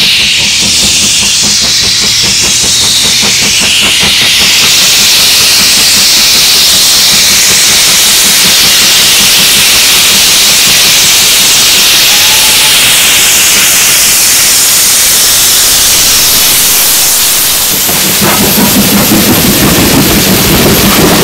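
BR Standard 4MT 2-6-4 tank locomotive No. 80072 working hard at close range: a loud steam hiss over rapid exhaust beats. About eighteen seconds in, the hiss eases and the rhythmic rumble of the coaches' wheels takes over as the train passes.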